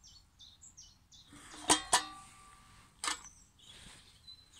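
Stainless steel mess tins clinking twice in quick succession, about two seconds in, each clink ringing briefly, with a lighter clack about a second later. A small bird chirps in quick short notes during the first second.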